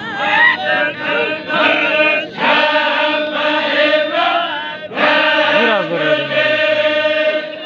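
A group of men chanting together in unison: the devotional chant of a Baloch chogan. After a few short broken phrases comes a long held phrase, then a second long one after a brief break near the middle.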